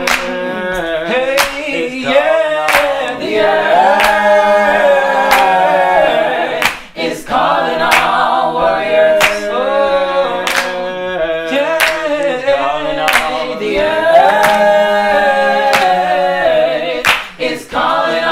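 Small a cappella choir of mixed voices singing in harmony, with hand claps on the beat about every 1.3 seconds.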